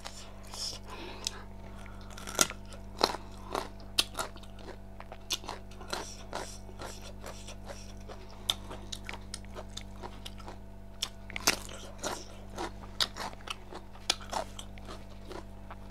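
Close-miked chewing and crunching of food in the mouth: irregular sharp crunches and wet smacks, a few every second, over a steady low hum.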